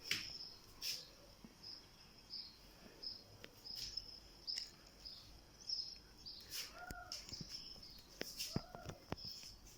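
Faint outdoor ambience: short high-pitched chirps repeating irregularly, like insects, with three short rising-and-falling calls in the second half and a few sharp clicks.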